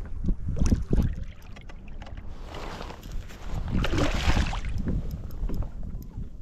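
A released striped bass splashing at the surface beside a kayak, a burst of splashing midway through that peaks about four seconds in, with wind rumbling on the microphone.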